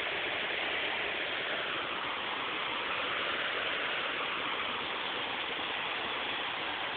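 Creek water cascading over waterfalls, a steady rush of water.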